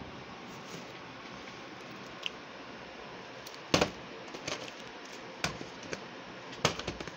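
Plastic VHS tape cases being handled, knocking and clacking as a tape is pulled out from among others. A few sharp clacks, the loudest a little under four seconds in, then a quick run of clicks near the end.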